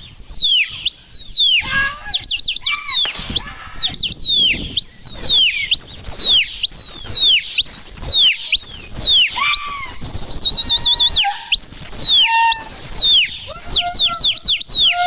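Loud whistling: a quick run of whistled notes, about one a second, each gliding up and then down, some broken into fast trills, with a lower held note near the end.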